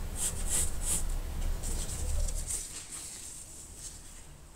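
Pencil scratching short marking strokes on a wooden block, several quick strokes in the first three seconds, fading after that, over a low steady hum.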